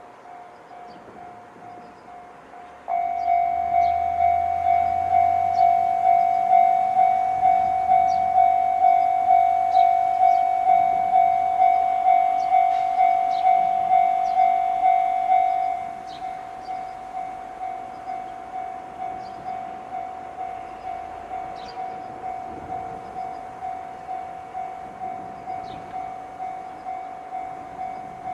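Japanese level-crossing electronic warning bell in the JR Tohoku tone, a pulsing ding about twice a second. It is faint at first, becomes loud about three seconds in, and drops to a lower level about sixteen seconds in while it keeps ringing.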